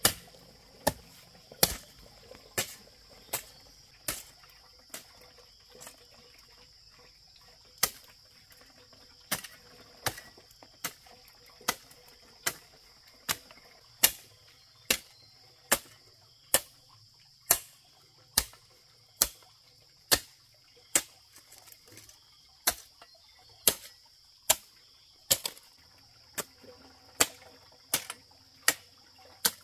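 Sharp strikes of a hand tool, such as a hoe or machete, land at a steady pace of about one every 0.8 seconds, pausing briefly about a quarter of the way in. A faint steady high insect drone runs underneath.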